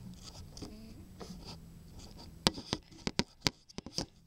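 Handling noise from the camera being moved and set at an angle: light rubbing and scraping, then a quick run of sharp clicks and knocks in the second half.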